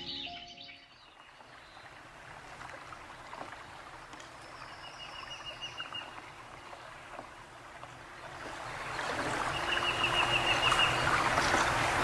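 Wild birds calling outdoors: a fast, high trill of repeated notes about five seconds in and another near ten seconds, with fainter chirps between. A rushing background noise grows louder through the second half.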